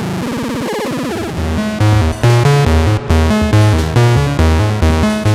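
Modular synthesizer patch voiced by the After Later Audio bOSC, a CEM3340-based analog oscillator. A dense buzzing tone gives way, about two seconds in, to a sequenced line of bass-heavy notes pulsing about twice a second and stepping in pitch.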